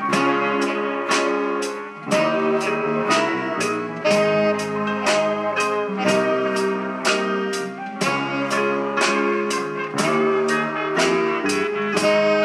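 Live rock band with a horn section playing an instrumental passage: drums keep a steady beat, about two hits a second, under electric guitar, bass, keyboard and held saxophone notes.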